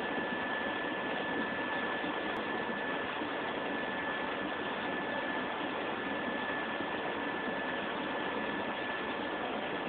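Roland Ultra offset printing press running: a steady mechanical noise with a thin, steady high whine.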